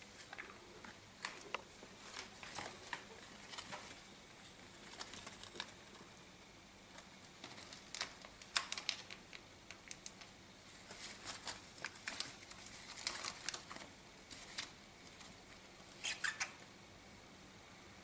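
A budgerigar chewing and tearing at the leaves of a houseplant. Quick crackling nibbles and small clicks come in scattered clusters, with the busiest run about halfway through.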